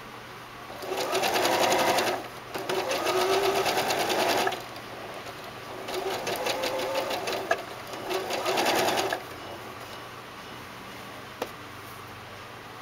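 Janome 3160 sewing machine stitching a blind hem in four short runs, stopping and starting again between them, with a rapid, even patter of needle strokes. One sharp click near the end.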